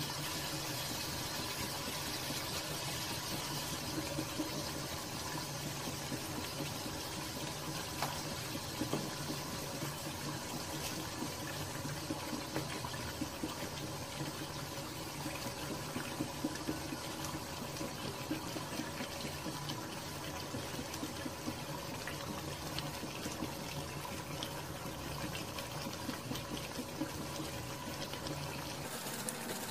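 Chicken pieces and tomato slices simmering in their juices in an aluminium pot, a steady watery sizzle, with a few light clicks of a slotted spoon against the pot.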